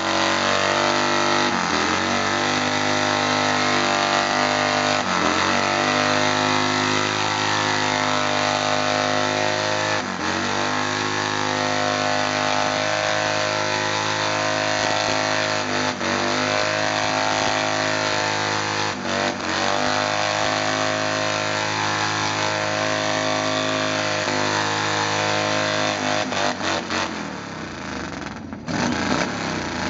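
Harley-Davidson V-twin motorcycle engine held at high revs during a burnout, its rear tyre spinning on the concrete pad. The revs dip briefly and recover about five times, then fall away near the end.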